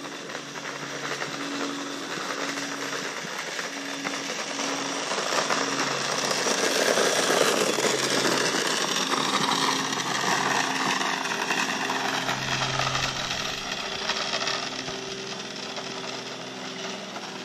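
A small engine running, swelling louder through the middle and easing off again, with a whine that falls in pitch.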